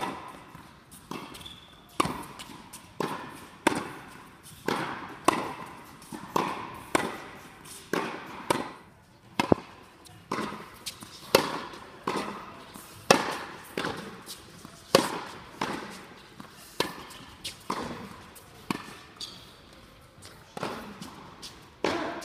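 Tennis rally: balls struck by rackets and bouncing on a hard court, a sharp pock about once a second, each echoing in a large indoor hall.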